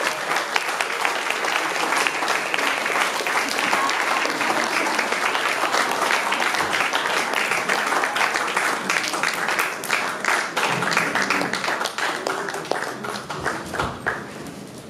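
Audience applauding steadily, the clapping thinning out and fading away near the end.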